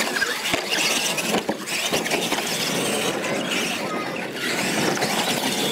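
Radio-controlled monster trucks running on a gravel track and over wooden ramps, a steady mix of small motors and tyres on gravel.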